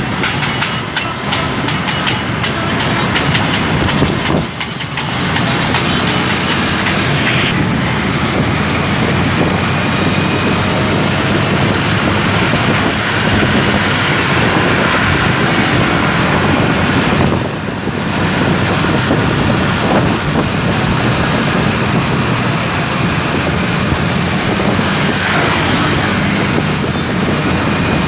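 Steady rush of motorbike riding noise in dense scooter traffic: engines running and air rushing past the microphone, briefly dropping about four seconds in and again near the middle.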